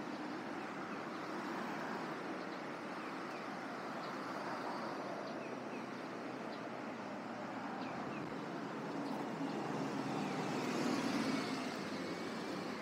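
Road traffic on a busy city street: a steady wash of tyre and engine noise, with one vehicle passing louder about ten seconds in.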